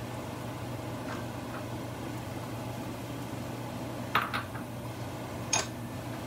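Sliced onions sautéing in a nonstick pan with a quiet sizzle over a steady low hum. A short clatter of kitchenware about four seconds in and a single sharp clink about a second and a half later.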